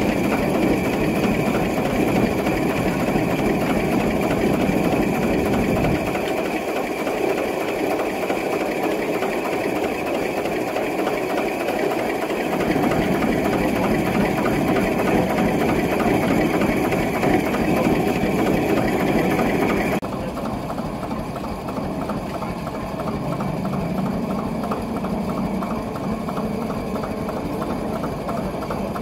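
1870 log-cutting frame saw (scie de long) running with a steady, rhythmic mechanical clatter. About two-thirds of the way through, the sharper, higher part of the sound drops away and it carries on a little quieter.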